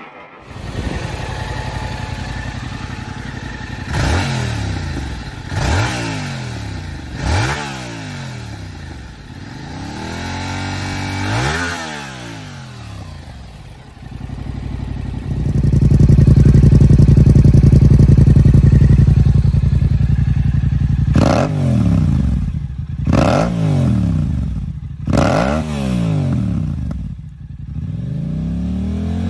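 2022 Yamaha R7's 689 cc parallel-twin engine revved through its exhaust: short throttle blips that climb and fall back to idle, then a loud high rev held for about four seconds midway, then several more quick blips.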